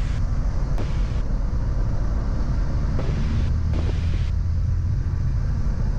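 Continental IO-550-B flat-six engine and Hartzell Scimitar propeller running at run-up power, about 1700 RPM, heard inside the cockpit. The propeller is being cycled for the run-up check, and the engine note dips and comes back about halfway through.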